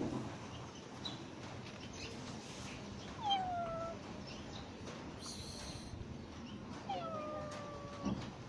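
A cat meowing twice, each meow a short call that falls in pitch, the first about a third of the way in and the second about three-quarters of the way in.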